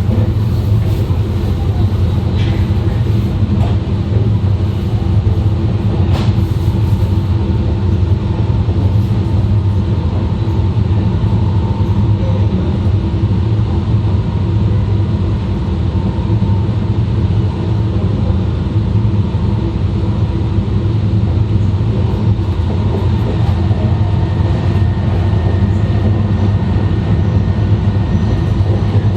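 E2 series Shinkansen running at line speed, heard from the vestibule at the end of a car: a steady, loud low rumble of wheels and running gear on the track, with faint steady tones above it.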